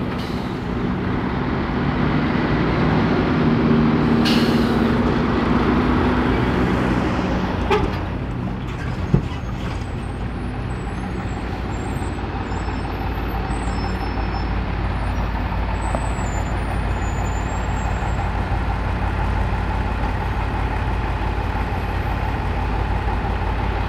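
Heavy diesel lorries passing in traffic, loudest in the first several seconds, with a brief hiss of air brakes about four seconds in. Then a MAZ tipper truck's diesel engine idling close by as it stands in a traffic queue.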